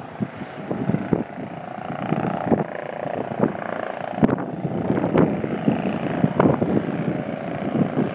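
Wind gusting on the microphone in irregular thumps, over the steady drone of a distant helicopter.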